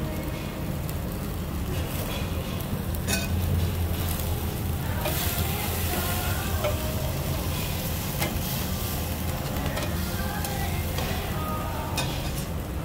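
Marinated beef short ribs (galbi) sizzling over charcoal on a tabletop grill grate, with a steady low hum underneath and a couple of sharp clicks.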